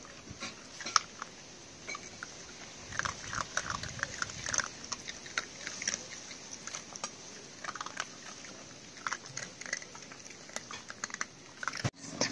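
Puppies crunching and chewing dry kibble: irregular crisp crunches that come in bunches.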